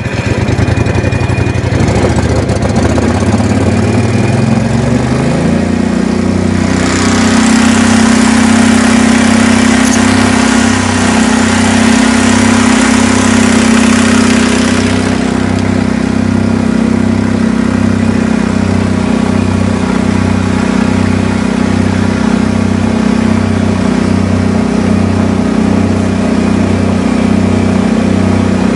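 A motor revs up over the first five seconds, then runs steadily at speed with a regular low pulsing. A loud hissing rush joins in for about eight seconds in the middle.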